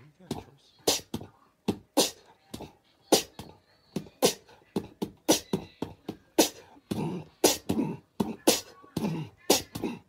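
A fast rhythmic beat of sharp percussive hits, about two to three a second.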